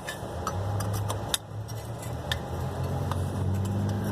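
A motor vehicle engine running close by: a steady low hum that comes in about half a second in and grows a little stronger near the end, with a few sharp light clicks and taps over it.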